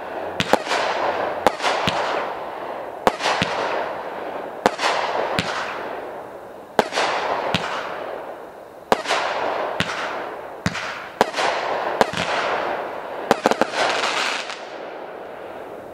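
Aerial fireworks from a crackling assortment going off one after another. Each is a sharp bang followed by about a second of crackling that fades, about a dozen in all at roughly one a second. The last burst is near the end.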